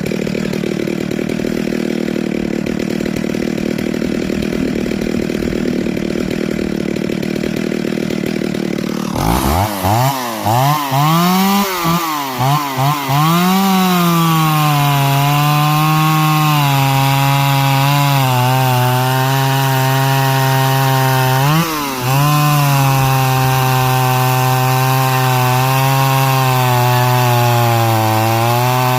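A Stihl 028 Wood Boss two-stroke chainsaw, rebuilt with a Meteor 46 mm cylinder, running. For about nine seconds it gives a rough, steady sound. Then the pitch swings up and down for a few seconds as the throttle is worked, and it settles to a steady speed, with one brief dip and rise later on.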